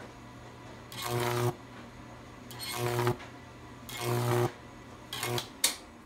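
Microwave-oven-transformer Jacob's ladder arcing in repeated bursts: the transformer's heavy mains buzz and the crackling hiss of the high-voltage arc swell for about half a second, three times about a second and a half apart, then twice briefly near the end. A faint steady hum continues between the bursts.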